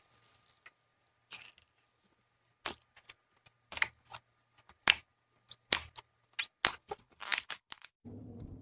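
Slime being pressed and squeezed by hand, giving a run of sharp clicking and popping sounds at uneven intervals. A steadier, lower sound begins near the end.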